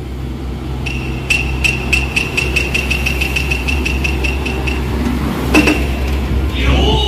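Heavy vehicle engine idling with a steady low hum. Over it, a rapid high-pitched beeping (about five beeps a second) runs for roughly four seconds. A sharp click follows, then a tone that rises at the very end.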